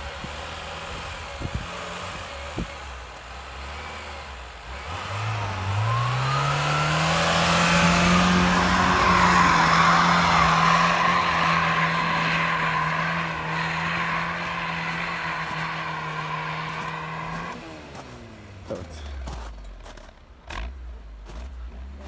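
Lada Niva engine revved hard with the wheels spinning and churning through deep snow; the engine note climbs about five seconds in, stays at high revs with a hiss of snow and tyres over it, then drops back near the end as the Niva bogs down, stuck in the snow.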